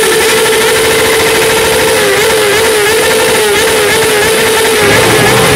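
Sport motorcycle engine held at high revs, giving a loud, steady high-pitched note that wavers slightly in the middle. Near the end a second, lower engine note joins in.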